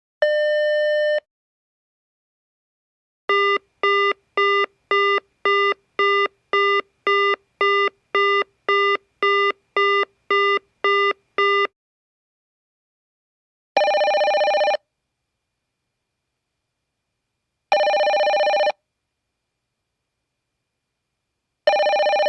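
Electronic telephone tones: a single beep about a second long, then a quick run of short beeps about two a second like a busy signal, then one-second tones repeating every four seconds like a ringing tone heard by the caller.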